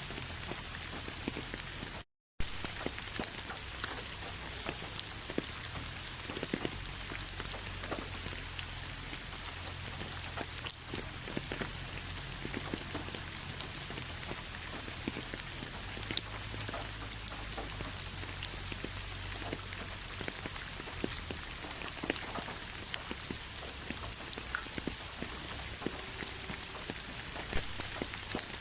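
Steady rain falling, an even hiss with many small drop ticks scattered through it. About two seconds in it cuts out completely for a split second, then resumes.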